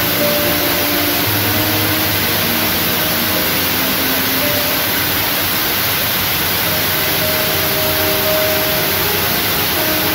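Background music with faint held notes under a loud, steady hiss.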